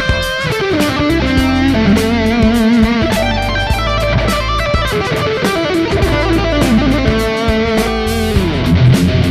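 Electric guitar played through a Mooer GE150 Pro multi-effects processor, playing a sustained lead line with vibrato and sliding notes over a backing track of drums and bass.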